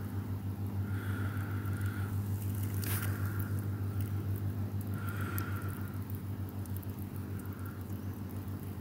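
A steady low hum runs throughout, with faint scattered ticks and soft hissy swells every second or two.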